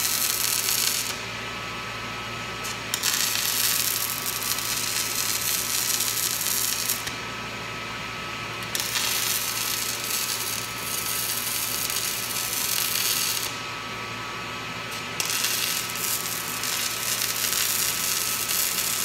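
Electric arc welding on a steel corner post: the arc crackles and spits in four stretches, breaking off and restarting three times. A steady machine hum runs underneath.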